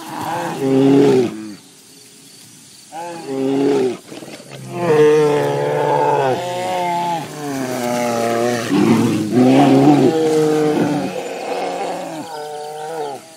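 Two Eurasian brown bears fighting, giving loud, drawn-out roars that rise and fall in pitch, with a short lull about two seconds in.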